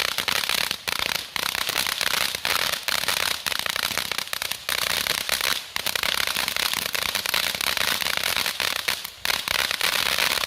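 Consumer fountain firework ("Honky Tonk") burning: a dense, loud crackling hiss of sparks peppered with sharp pops, which cuts off suddenly near the end as the fountain burns out.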